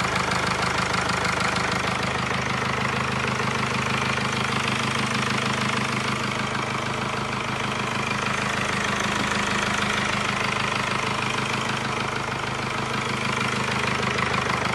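Mercedes 2-litre diesel engine idling steadily just after a timing chain replacement. It runs evenly, without the scraping "har har har" noise that pointed to the worn chain.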